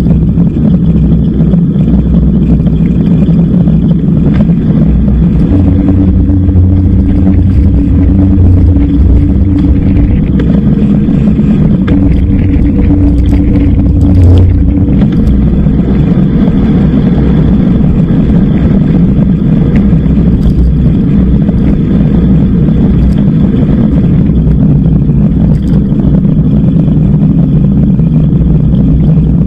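Loud, steady wind rumble on a bike-mounted action camera's microphone while riding, with road and tyre noise. For several seconds in the middle a steady low hum runs underneath.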